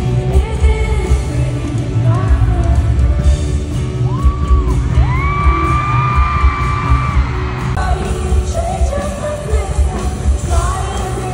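Live pop concert recorded on a phone in an arena crowd: the band plays loud with heavy bass, a singer holds long notes partway through, and the crowd yells along. The sound jumps abruptly about eight seconds in, where two clips are cut together.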